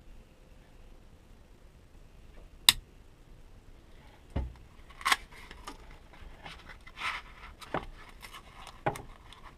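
Victorinox Rucksack Swiss Army knife being handled: a scattering of sharp metal clicks with light scraping and rubbing, the loudest click a little under three seconds in, as its tools are snapped shut.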